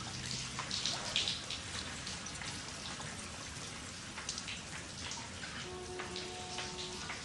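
Steady patter of rain, with many separate drops striking a surface. A few faint held tones come in about six seconds in.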